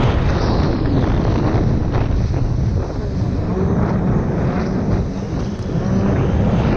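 Sea-Doo RXP-X jet ski running at speed, its engine drone mixed with heavy wind buffeting on the onboard microphone.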